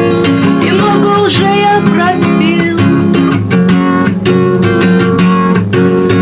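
Acoustic guitar strummed in a steady rhythm on a home demo recorded on a dictaphone.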